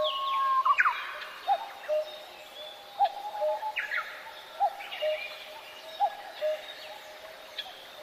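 Birds calling: a short rising chirp repeats about every second and a half, mixed with higher sweeping calls that are busiest in the first second or so.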